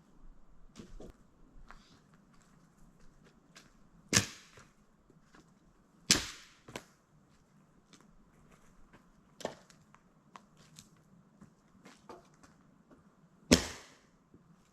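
A few sharp knocks or cracks, each dying away quickly, with fainter clicks between; the loudest come about four, six and thirteen and a half seconds in.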